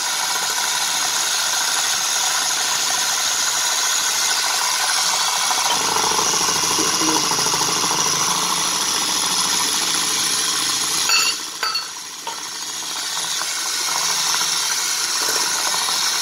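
Electric hand mixer running steadily, its beaters whisking runny cake batter in a glass bowl. About eleven seconds in it drops off briefly with a couple of clicks, then picks up again.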